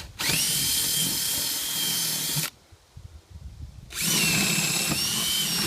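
Power drill running in two bursts of a couple of seconds each, with a steady whine, boring the larger mounting holes for the solar panels after the pilot holes.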